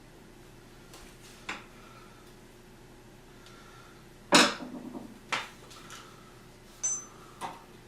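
A handful of separate sharp metallic clicks and knocks, the loudest about four and a half seconds in, from small metal door hardware and hand tools being handled and set against a wooden door jamb.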